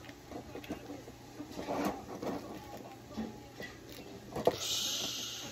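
Plastic wrestling action figures and a toy ladder being handled and knocked about in a toy wrestling ring: scattered light clicks and clacks, with a sharper click about four and a half seconds in followed by a short hiss.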